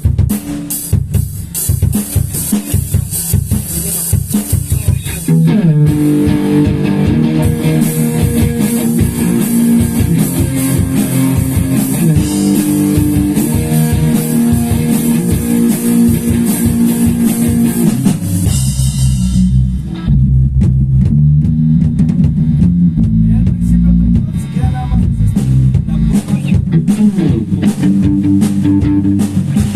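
Rock band playing: drum kit from the start, with electric guitar and bass guitar coming in about five seconds in. Around eighteen seconds the cymbals drop out and a heavier, lower bass-and-guitar part carries on with the drums.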